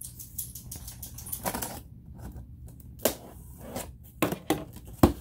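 Knife cutting and scratching along the packing tape of a cardboard box, with a run of sharp clicks and knocks, the loudest just before the end.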